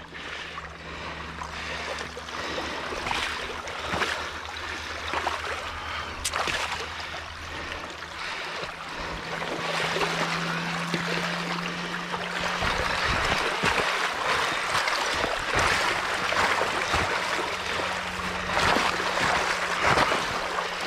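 Water rushing out through a freshly breached beaver dam, a steady noisy flow that grows louder partway through as the breach opens and the pond drains, with a few short knocks.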